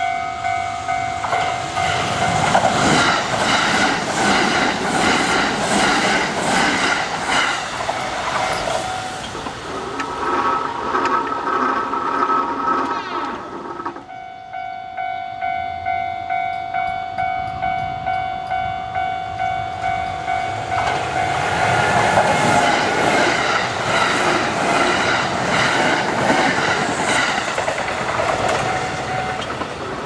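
Japanese railway level-crossing alarm ringing with a steady, regular beat, dropping out and starting again about halfway through. Trains pass over the crossing twice, their wheels clattering over the rail joints, once in the first third and again in the second half.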